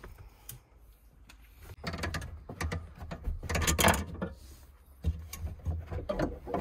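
A pickup's metal tyre-changing tools clanking and rattling as they are unfastened and lifted out of their stowage. The handling is busiest from about two to four seconds in, with a few separate sharp clicks after that.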